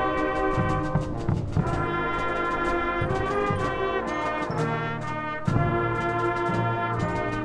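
Brass and percussion marching band playing: sustained brass chords over regular drum strokes, with timpani.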